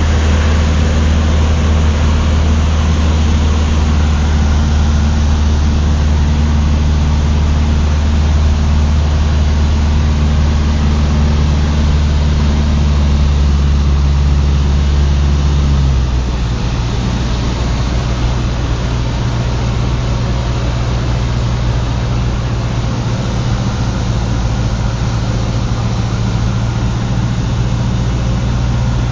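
Cessna 150's four-cylinder Continental O-200 engine and propeller running steadily. About halfway through, the tone and level change abruptly and then hold steady again.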